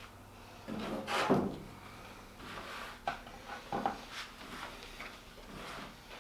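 Plastic spreader scraping and mixing body filler on a mixing board: a run of short, irregular scrapes and taps, the loudest about a second in.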